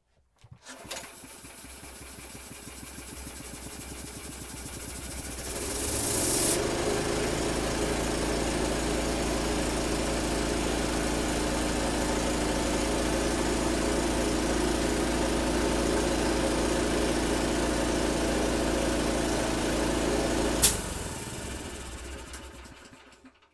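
Honda GX160 single-cylinder engine pull-started on choke with a freshly installed carburetor; it catches at once and runs. About five seconds in it speeds up to a steady run. Near the end there is a sharp click and the engine winds down to a stop. It starts and runs smoothly, the sign of a successful carburetor replacement.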